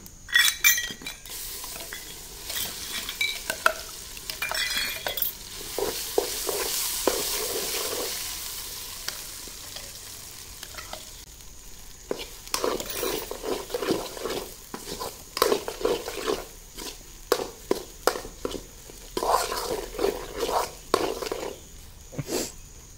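Ground pirandai paste poured into hot tempering oil in a steel kadai sizzles for several seconds and then dies down. After that a steel ladle stirs and scrapes around the pan again and again, with metal clinks.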